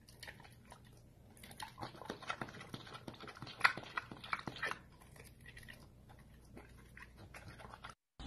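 Pet pig chewing and smacking its lips while eating off a knife: soft, irregular wet clicks and smacks, busiest in the middle and thinning toward the end.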